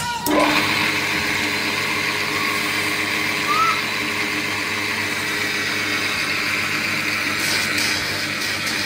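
Belt-driven bench grinding wheel running with a steady motor whine that sets in abruptly just after the start. Near the end a high rasp comes in as the steel pinion gear's teeth are ground against the wheel.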